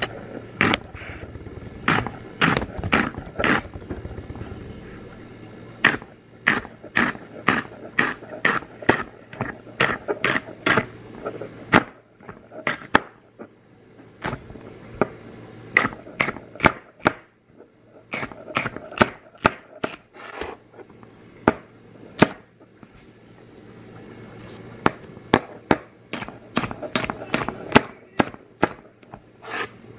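Chef's knife chopping celery stalks on a granite countertop: crisp chops, about two a second, in runs broken by a few short pauses, each stroke crunching through the stalk and knocking on the stone.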